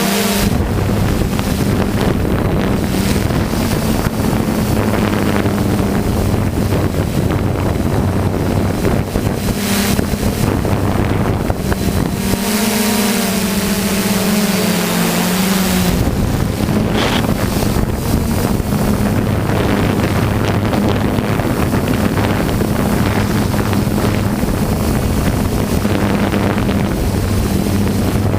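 DJI F450 quadcopter in flight, recorded by its onboard GoPro: wind noise on the camera's microphone over the steady hum of the propellers. The propeller hum changes pitch for a few seconds near the middle.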